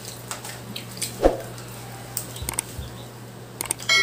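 Eating sounds from a seafood boil: scattered small clicks and squelches of shells and food being handled and chewed, with a louder knock about a second in. A ringing clink, like a dish or utensil being struck, comes right at the end.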